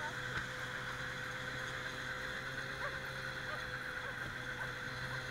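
Snowmobile engine running at a steady speed as it tows a sled through snow, a constant hum with a steady higher tone over a hiss.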